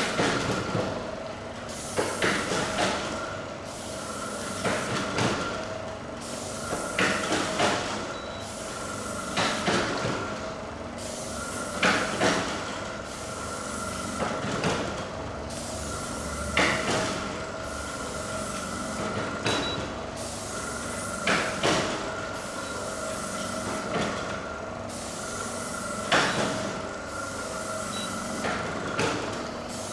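Hand-made pendulum marking tool, a heavy bowl hung on a rope, swinging over paper on a concrete floor. It knocks and scrapes about every two seconds, often twice in quick succession, over a steady hum.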